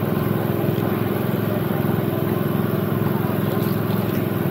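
A small engine running steadily at a constant speed, with crowd chatter under it.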